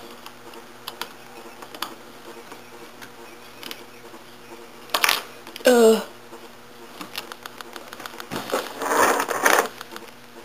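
A steady buzzing hum with scattered light clicks. About halfway through comes a short voice-like cry falling steeply in pitch, and near the end a rough, noisy burst lasting about a second.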